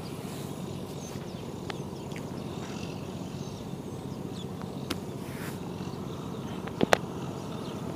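Steady low background noise with a few faint clicks, the loudest a quick pair near the end.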